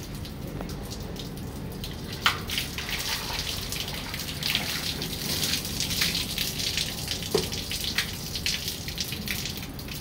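Water splattering and dripping off a window air conditioner's casing and coils as it is doused with mugs of water, with a sharper splash about two seconds in and again about seven seconds in.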